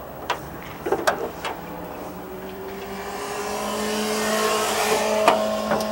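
A motorcycle going by on the street, its engine note slowly rising as it accelerates and growing louder to a peak a little past the middle before easing off. A few sharp clicks come in the first second or so and again near the end.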